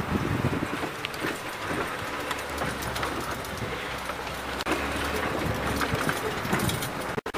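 Safari game-drive vehicle's engine running steadily as it drives over rough bush track, with knocks and rattles from the bouncing vehicle.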